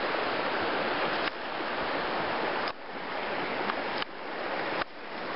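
Flowing river water rushing steadily over a stony bed, dipping suddenly in level a few times.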